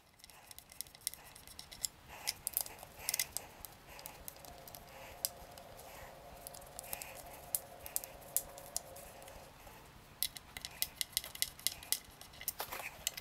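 Light clicks and ticks of a 3 mm Allen key backing out the small screws that hold a loudspeaker's terminal cup, with a denser run of clicks near the end as the cup is worked loose from the cabinet.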